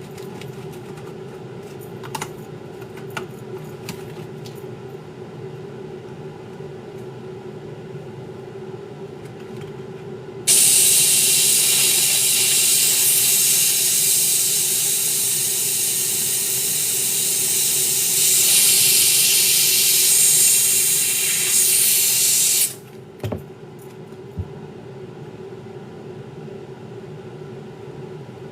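A loud, steady hiss from a sneaker-restoration tool starts abruptly about ten seconds in and cuts off suddenly about twelve seconds later. A steady low hum runs underneath, with a few light clicks before the hiss.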